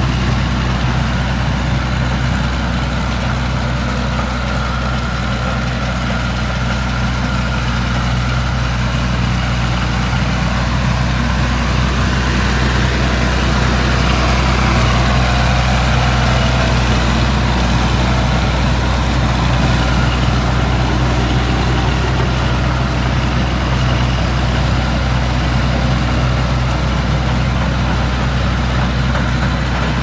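Massey Ferguson tractor engine running steadily under load as it pulls and drives a John Deere 330 round baler picking up hay from windrows, with the baler's machinery running along with it.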